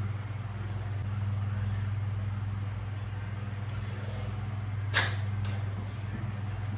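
Steady low hum, with one sharp click about five seconds in and a fainter tick about half a second after it.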